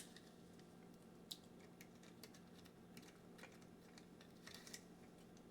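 Near silence with a few faint, scattered clicks and taps of small plastic pieces being handled.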